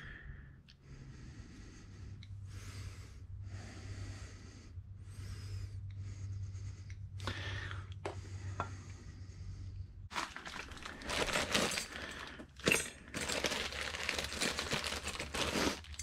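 Soft rustling strokes about once a second, then from about ten seconds in a loud, dense crinkling and tearing of a plastic packet, as the bag holding the new brake pad hardware clips is opened.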